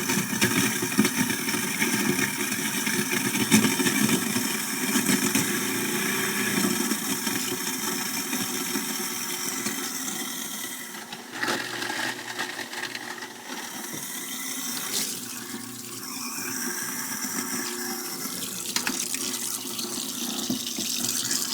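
InSinkErator 100SS garbage disposal switching on and grinding a whole watermelon rind, with tap water running into the sink. The grinding is heaviest for the first ten seconds or so, changes with a few sharp bursts a little after that, then settles to a lighter, steadier run as the rind is broken up.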